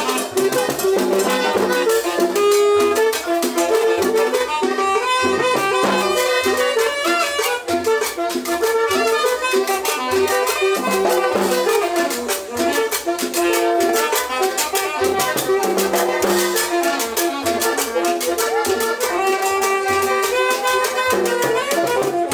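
Live cumbia band playing: saxophone over conga drums and upright bass, with a steady, quick dance beat.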